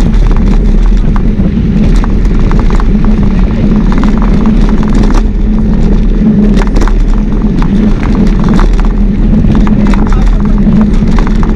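Loud, steady rush of wind and rolling noise from a camera travelling on a moving mountain bike, with scattered clicks and rattles throughout.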